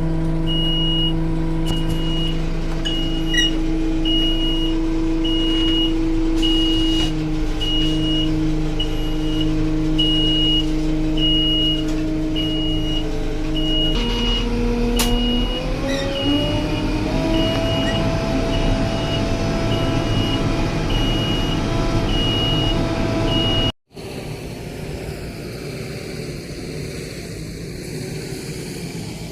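Backhoe loader's diesel engine running with its reverse alarm beeping steadily, a little more than once a second. About 14 seconds in the engine speeds up as the machine works. After a sudden cut near the end, a quieter engine is heard with no beeping.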